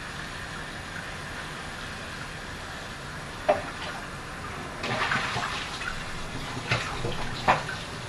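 Cold water from the kitchen tap running into the sink over hot drained pierogies, starting up louder about five seconds in. A few sharp knocks of cookware sound at the sink.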